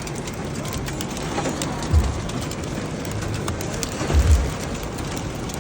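Rain and hail hitting surfaces in a steady hiss with many sharp ticks. Low thuds come about two seconds in and again around four seconds.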